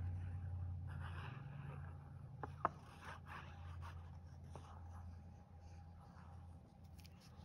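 Faint scratching and rubbing of a multipurpose liquid glue bottle's fine tip drawn along the back of a paper square as it lays lines of glue, with one sharp click about two and a half seconds in. A steady low hum runs underneath.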